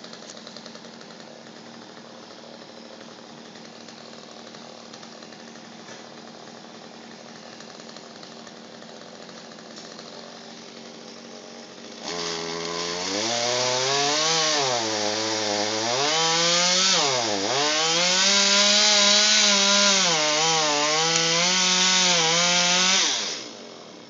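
A chainsaw hums steadily at low speed, then about halfway through is opened up to full throttle and cuts. Its pitch rises and dips repeatedly as the bar bites into the wood. The saw stops abruptly near the end.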